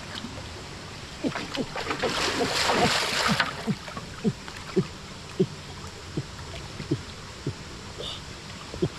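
A series of short dull knocks, about two a second, over a steady background hiss, with a brief burst of noise about two seconds in.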